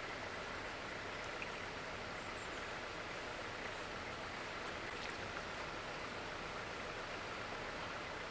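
Steady rush of flowing river water, an even hiss that holds at one level throughout.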